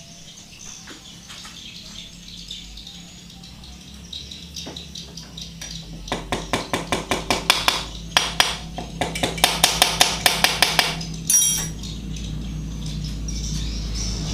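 Rapid metal-on-metal tapping, about five or six blows a second, from a hammer striking a drift to drive a bearing into the aluminium final-drive case of a Yamaha Soul GT scooter. It starts with a few scattered faint clicks and grows into a loud run of taps in the second half, ending with a brief harsher noise.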